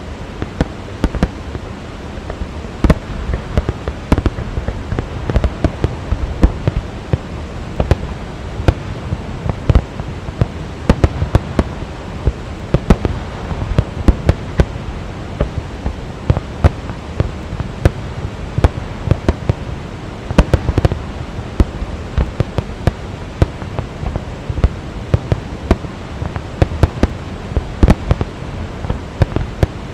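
Fireworks display: shells bursting in quick, irregular succession, several sharp bangs a second throughout, over the steady roar of the Rhine Falls waterfall.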